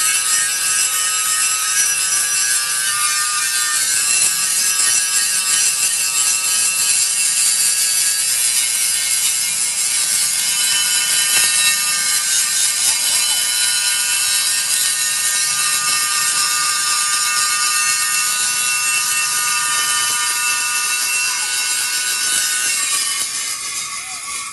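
Angle grinder working the metal of a truck wheel rim: a steady, loud high-pitched whine over a hiss, easing off just before the end.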